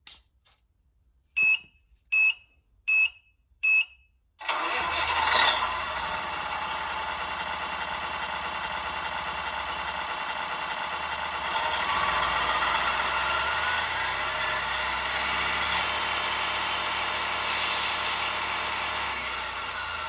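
Tamiya MFC-01 light and sound unit powering up for the first time: four short beeps, then its simulated truck engine starts about four seconds in and runs steadily, revving up in pitch and level around the middle.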